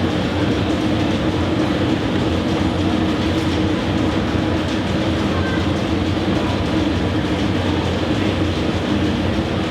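Steady, loud mechanical rumble with a constant low hum and no clear rhythm.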